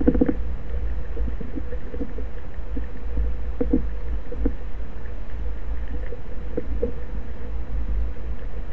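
Underwater sound picked up through a speargun-mounted camera's housing: a steady low rumble with a faint hum and scattered faint taps.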